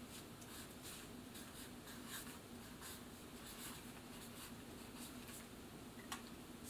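Felt-tip marker writing on paper: faint scratchy strokes, several a second, as a word is written out. A single small click near the end as the marker is handled and capped.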